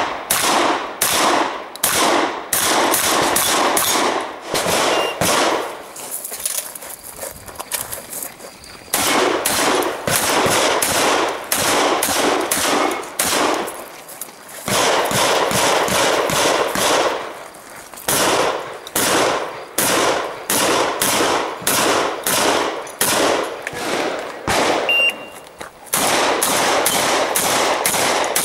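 Shotgun fired in quick strings of shots at close range, each shot ringing out, the strings broken by short pauses.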